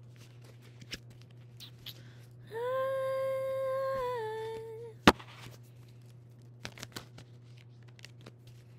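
A woman hums one held note for a little over two seconds, its pitch dropping slightly near the end. A single sharp click follows just after, the loudest sound. Faint scattered clicks and a steady low electrical hum sit underneath.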